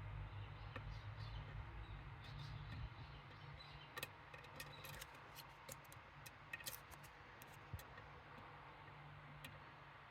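Faint, scattered small metallic clicks and ticks from hands-on work on a Medeco M3 lock cylinder, over a low hum that fades about three seconds in.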